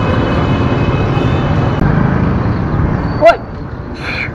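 Steady motorcycle and street-traffic rumble. About three seconds in it is broken by one short, very loud sharp sound that rises in pitch, after which the background is quieter and a brief higher sound follows near the end.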